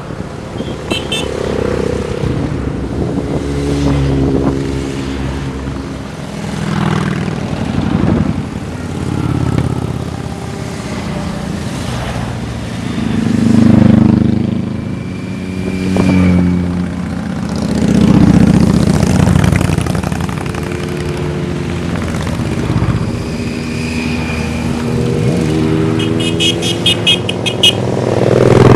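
A procession of motorcycles, sport bikes and cruisers, riding past one after another, each engine swelling as it passes and fading away, so the sound rises and falls every few seconds. The loudest passes come about halfway through and at the end.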